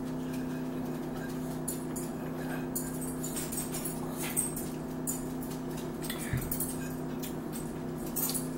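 Eating at a table: forks clicking and scraping on plates and chewing, as a string of small clicks and ticks over a steady low hum.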